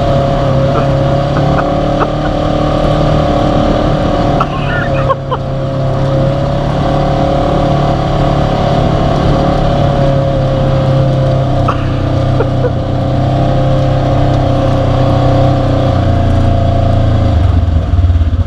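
Polaris RZR side-by-side engine running at a steady pitch, close and loud, as the machine drives at an even pace.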